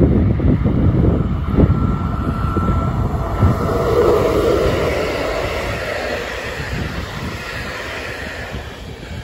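Electric locomotive hauling a passenger train passing close by: wheels rumbling on the rails and the locomotive's hum, loudest about four seconds in, then fading as the coaches roll past. Wind buffets the microphone during the first couple of seconds.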